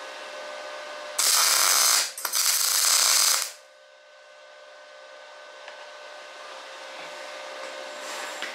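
Welding arc crackling in two short bursts, about a second apart in all, as small tack welds are laid on the steel frame tube, over a steady machine hum.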